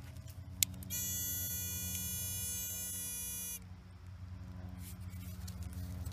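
Handheld metal-detecting pinpointer probe giving its steady buzzing alarm for about three seconds, then cutting off abruptly: the signal that its tip is close to a buried metal target. A short click comes just before the buzz.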